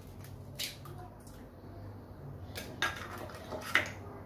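Eggs being cracked into a stainless-steel mixing bowl: a handful of sharp taps and clinks of shell on metal and on a small plate.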